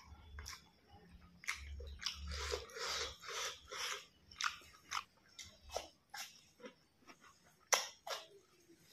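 A person chewing a mouthful of rice and pork curry, wet mouth noises about two a second, thinning out to scattered clicks, with one sharp click near the end as a tomato slice goes into the mouth.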